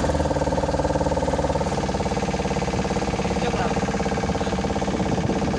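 Car engine running steadily with road rumble, heard from inside the cabin while driving.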